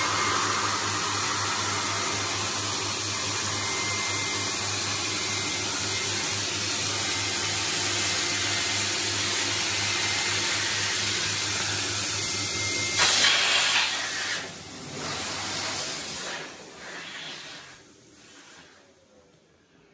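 Electric air pump blowing through a hose into a vinyl inflatable toy: a steady motor and airflow noise with a low hum. About two-thirds of the way through it briefly gets louder, then dies away over the last few seconds.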